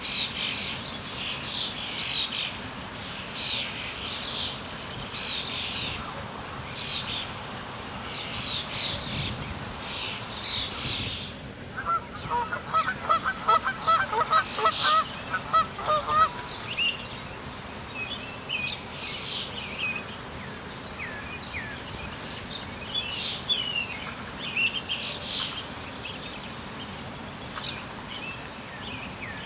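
Wild birds calling and singing: repeated high chirps over a steady background hiss, with a rapid run of lower, evenly repeated notes for a few seconds around the middle.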